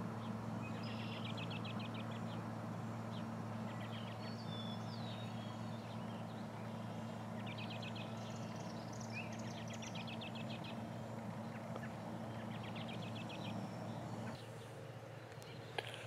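Birds singing short, rapid, high trills, each about a second long, five or six times, with a few other chirps. Under them is a steady low hum that drops away shortly before the end.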